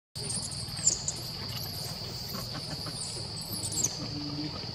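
Steady high-pitched drone of insects, crickets or cicadas, with a few short sharp squeaks that are loudest about a second in and again near the end.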